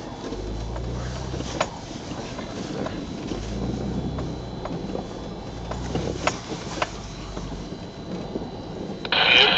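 Engine of an off-road four-wheel-drive vehicle rumbling at low speed, heard from inside the cab as it drives over snow. The rumble swells and eases with the throttle, with a few sharp knocks and rattles from the bouncing body. A short loud rushing noise comes near the end.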